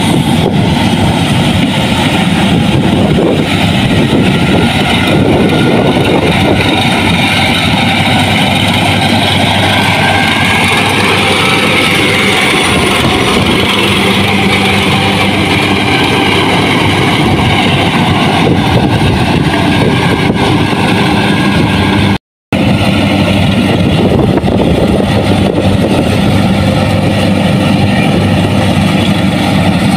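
Combine harvester's engine running steadily under load, a loud continuous drone. The sound cuts out completely for a split second about two-thirds of the way through.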